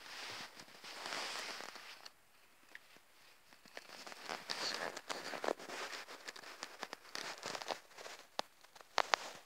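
Soft rustling and scratchy crackling of a cotton duvet cover as a hamster scurries across it, with scattered small clicks and a couple of sharper clicks near the end.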